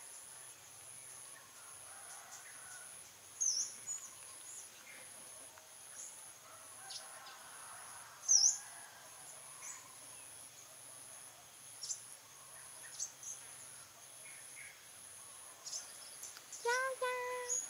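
Outdoor ambience of a steady, evenly pulsing high insect trill. Over it are two brief bird chirps about 3.5 and 8.5 seconds in, and a short pitched call near the end.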